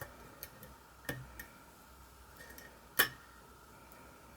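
Lock pick working the spool pins of a pin-tumbler challenge lock under a tension wrench: a few sharp, scattered metallic clicks, the loudest about three seconds in.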